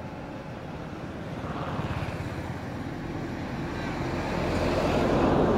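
A motor engine running steadily in the background, growing louder toward the end as it draws near.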